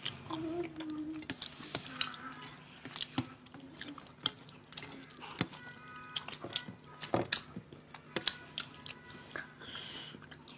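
Close-up eating sounds of two people eating rice and fish by hand: wet chewing and lip smacking, with scattered sharp clicks as fingers work the food on steel plates.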